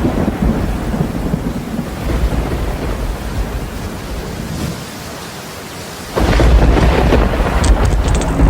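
Rumbling thunder with rain falling, growing louder about six seconds in.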